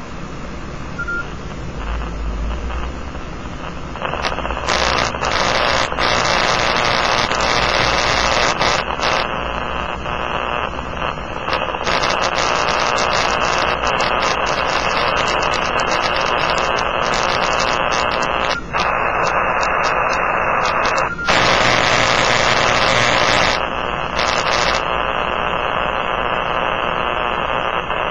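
Powerline interference heard through a Kenwood TS-480 transceiver's receiver: a harsh, steady static hiss full of crackles. It gets louder and brighter about four seconds in, and its tone shifts a few times as the receiver's mode and tuning change.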